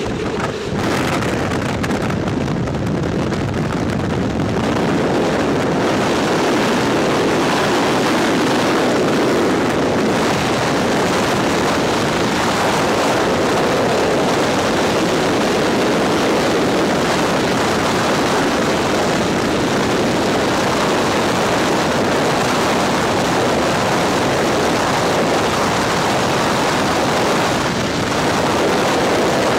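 Freefall wind rushing over the skydiving camera flyer's microphone just after the exit from the aircraft: a steady roar that grows louder over the first few seconds as speed builds, then holds even.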